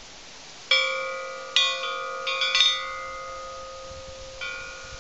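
Iron sound mobile of hanging fish-shaped plates, the plates striking one another and ringing like bells: a cluster of clinks between about one and three seconds in and one more near the end, each leaving several clear tones ringing on.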